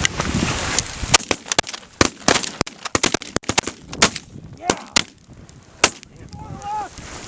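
A volley of shotgun shots from several guns, a dozen or more in quick, uneven succession over about five seconds, with a last shot near the end. Geese honk in between the shots.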